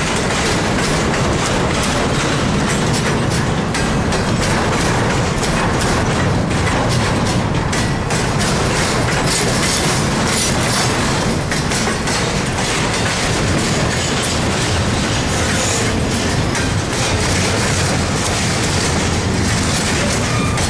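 Double-stack intermodal freight train's well cars rolling past: a loud, steady rumble of steel wheels on rail with repeated clickety-clack over the rail joints.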